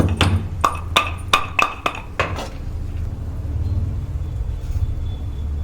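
About nine quick ringing metallic strikes over the first two and a half seconds: a black cardamom pod being pounded with a metal pestle. A low steady hum runs underneath and carries on after the strikes stop.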